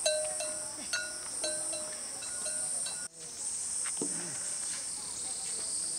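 A steady, high-pitched chorus of insects chirring. Over it, in the first half, come sharp clicks with short ringing tones, about two a second. The sound drops out briefly about halfway through.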